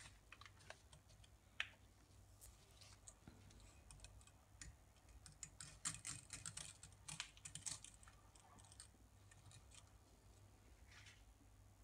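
Faint, scattered clicking of dry spaghetti strands tapping against one another and against the rim of a stainless steel pot as the bundle is stood in the water and fanned out by hand, busiest around the middle.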